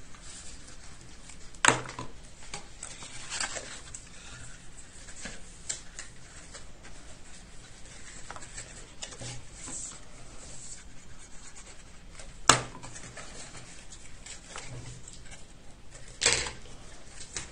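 Paper and cardstock being folded and handled on a tabletop: light rustling and scraping, with three sharp taps against the table, about two seconds in, about twelve seconds in, and near the end.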